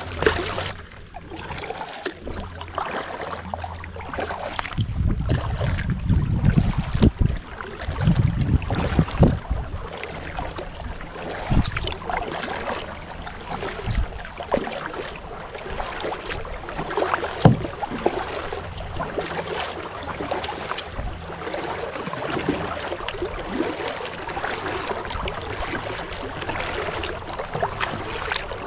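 Kayak paddle strokes splashing and dripping in shallow river water, with many small irregular ticks and splashes in a light rain sprinkle. A low rumble comes in for a few seconds about five to ten seconds in.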